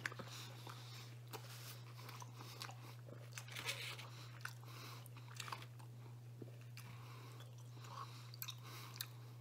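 A person chewing a mouthful of pizza, with soft, irregular wet clicks and crunches, over a steady low hum.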